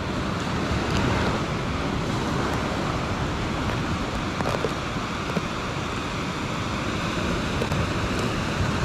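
Steady wash of surf with wind rushing on the microphone.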